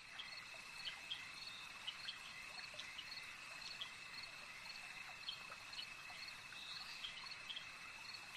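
Faint night-time crickets: a steady high trill with short chirps scattered irregularly over it.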